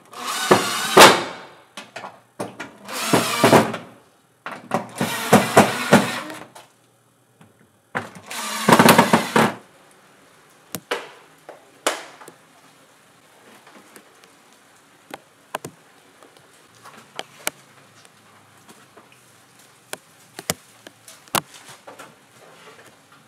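Cordless impact driver driving screws through corrugated roofing sheet, four bursts in the first ten seconds, each a second or two long. After that, scattered sharp knocks and clicks.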